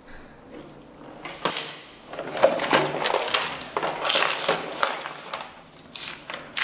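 Handling noise of plastic: a plastic bag rustling and a clear plastic organizer box of small wire connectors being picked up and opened, with irregular clicks of the lid and rattling of the parts inside.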